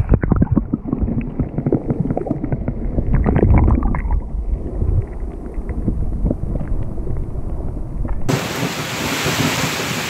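Muffled water sloshing and knocking heard through a submerged camera as a brown trout is released. About eight seconds in it gives way to a steady hiss of heavy rain.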